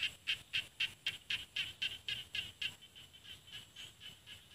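Khiat ja na rice-paddy frog calling: a quick run of short, high, even notes, about four a second, loud at first and then growing softer from about three seconds in.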